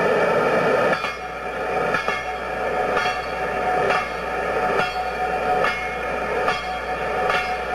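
A train moving on jointed rail: a clack about once a second from the rail joints over a steady tone.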